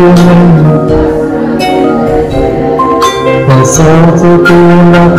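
Instrumental hymn accompaniment with no singing: sustained notes, with a few struck, ringing notes over them.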